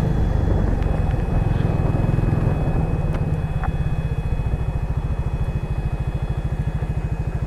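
Motorcycle engine running while riding, its low sound turning into a distinct rapid, even beat after about three seconds as it settles to low revs.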